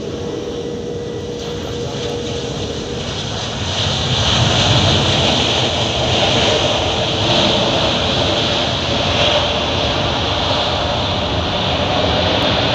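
Airbus A350 airliner's jet engines (Rolls-Royce Trent XWB) rushing as the jet touches down and rolls out on the runway, growing louder about four seconds in and then holding steady.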